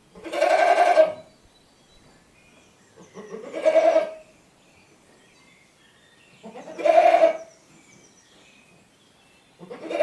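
Goat bleating: drawn-out, wavering calls about a second long, coming roughly every three seconds, with a fourth starting near the end.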